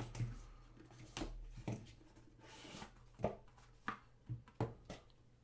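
Trading card packs and cards being handled on a table: a string of light taps and clicks, with a short rustle of foil wrapper about two and a half seconds in.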